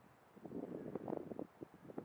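Wind buffeting the microphone in irregular gusts, a low rumbling noise that swells about half a second in and eases off near the end.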